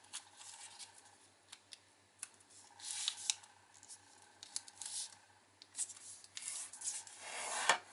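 Origami paper being folded and creased by hand: the paper rustles and fingertips brush along the folds in short, scattered strokes and small clicks, with the longest stretch of rustling near the end.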